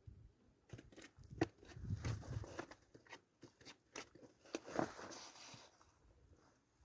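Close handling noise: irregular sharp clicks and crackling rustle, thickest in the middle and dying away about a second before the end.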